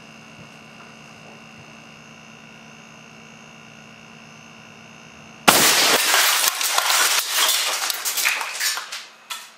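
Fire-extinguisher-tank air cannon with a solenoid valve firing a shotgun load of .177 steel BBs: a sudden loud blast about five and a half seconds in. It is followed by about three seconds of dense clattering and cracking as the BBs shatter the plastic toy truck and the pieces scatter, fading out. Before the shot there is only a steady hum.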